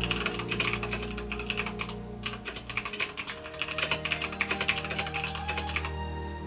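Rapid typing on a computer keyboard, a quick run of key clicks with a brief pause about two seconds in, over soft background music.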